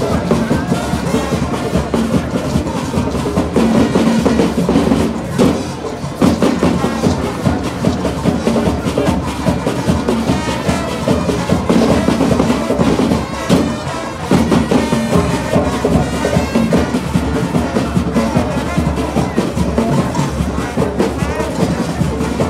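Carnival band music: steady drumming and percussion with brass over a constant beat.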